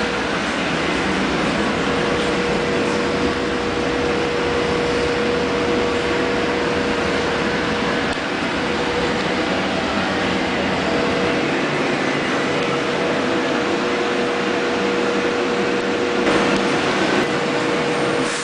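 Middleby Marshall PS360 conveyor pizza oven running at baking heat, about 480 degrees: a steady whir of its air-impingement blower fans with a constant hum tone.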